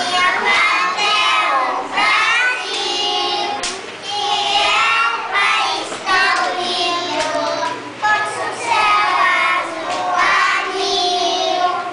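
A group of young children singing together in phrases about two seconds long.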